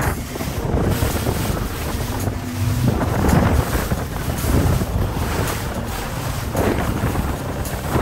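Motorboat under way at speed: wind buffeting the microphone over water rushing and splashing past the hull, with a gusty, uneven rise and fall.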